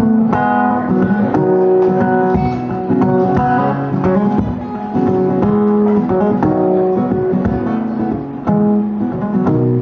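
Acoustic guitar strummed in steady chords, an instrumental passage between sung verses.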